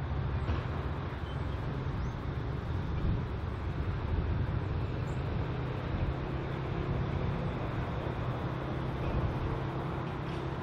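Vintage EMD diesel-electric freight locomotives X31 and B76 approaching under power, their engines giving a steady low drone. A faint higher tone joins in during the second half.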